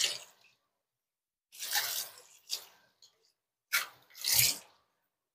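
Water splashing in several short bursts, each under a second long, with silence between them.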